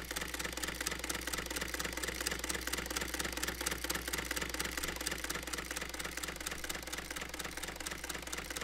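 A steady mechanical clatter: rapid, evenly spaced clicks, many a second, over a constant low hum.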